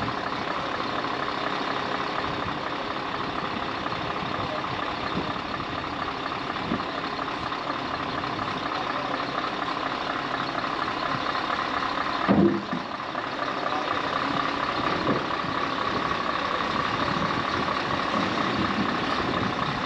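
A heavy recovery truck's diesel engine runs steadily, with one sharp knock about twelve seconds in.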